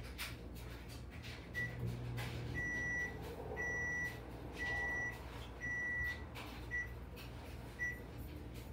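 Microwave oven beeping at one high pitch: a short beep, then four half-second beeps about a second apart, then single short beeps, over a low steady hum and a few light knocks.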